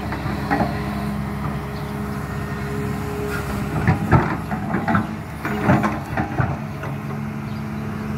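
LiuGong hydraulic excavator's diesel engine running steadily while the bucket digs into and lifts a load of soil, with a few short knocks from the bucket and arm about four to six and a half seconds in.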